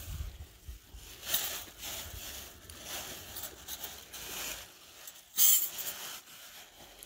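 Rustling and crinkling of food packaging being handled: a string of short scratchy bursts, the loudest about five and a half seconds in.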